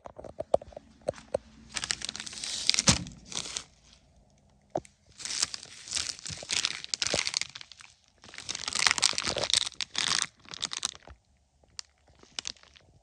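Crinkling, crackling noise in three long bursts, with scattered clicks and knocks between them.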